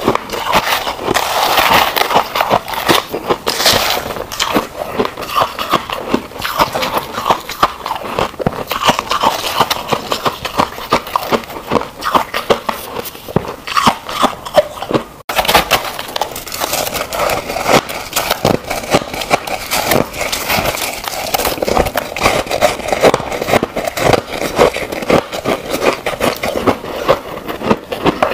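Dense, continuous crunching and crackling of crushed frost ice close to a lapel microphone, breaking off for an instant about halfway through.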